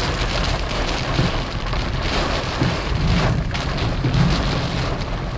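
Heavy rain falling on a car's roof and windshield, heard from inside the cabin as a steady hiss, with a faint soft knock about every second and a half.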